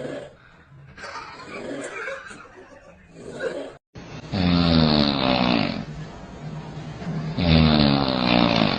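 Snoring: softer snuffly breathing sounds, then two loud, drawn-out snores about three seconds apart, each lasting about a second and a half.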